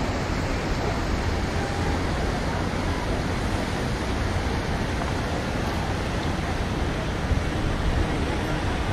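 Wind buffeting the camera microphone: a steady rushing noise with a flickering low rumble.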